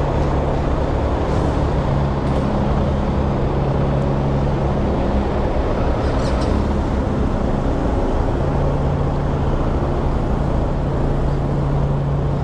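BMW R1250GS boxer-twin engine running steadily while riding, over road and wind noise; the engine note drops briefly about seven seconds in and then comes back.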